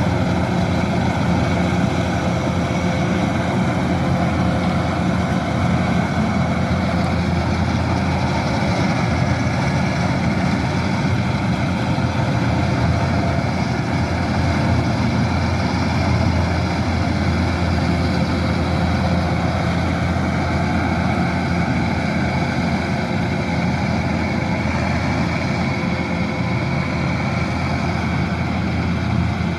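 Kubota DC-108X combine harvester's diesel engine running steadily at a constant pitch and level.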